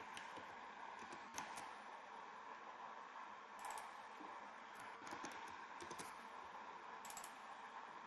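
Computer keyboard typing: faint keystrokes in short clusters of a few clicks, separated by pauses, over a faint steady hiss.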